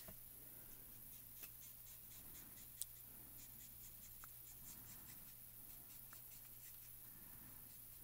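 Faint scratching and dabbing of a Copic alcohol marker's tip on cardstock as small strokes of colour are laid down, with one sharper tick about three seconds in.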